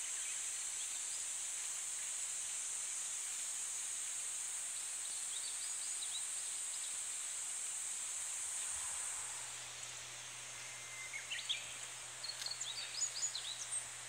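A steady, high-pitched chorus of cicadas, which drops away about two-thirds through. Then a Japanese bush warbler sings: a held whistle followed by quick rising and falling notes, with more quick chirps near the end.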